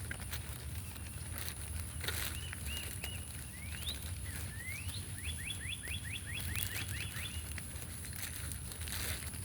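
A songbird calling: a few short slurred notes, two rising sweeps, then a quick run of about nine notes around five seconds in. A steady low rumble and a few soft clicks lie underneath.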